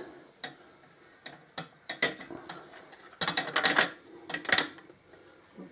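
Metal clinks and light knocks as a motorcycle's rear exhaust pipe and flange are worked into place at the engine's exhaust port. The clicks are scattered, with a quick cluster about three seconds in and another sharp one a little later.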